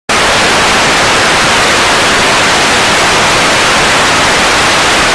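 Loud television static: steady white-noise hiss that cuts in abruptly and holds without change.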